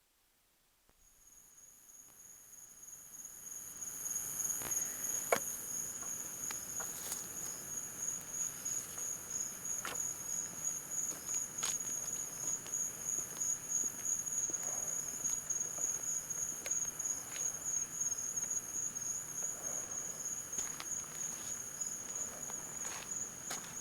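Insects trilling steadily in one continuous high, rapidly pulsing note. It fades in over the first few seconds, with scattered faint clicks and taps over it.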